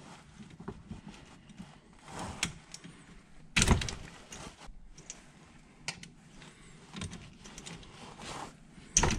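Pliers and hands working plastic wiring connectors apart: scattered small clicks and rattles of plastic and metal, with two louder sharp clacks, one about three and a half seconds in and one near the end.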